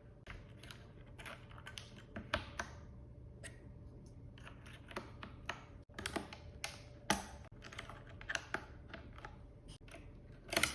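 Keychron K4 mechanical keyboard being handled: scattered, irregular plastic clicks of keys and keycaps being pressed, a few a second, with a louder pair of clicks near the end.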